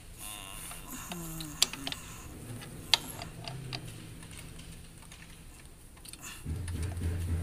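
Sharp metallic clicks and taps from hand work at a hose fitting on a truck's engine and gearbox, the two loudest about a second and a half and three seconds in. A low steady hum comes in near the end.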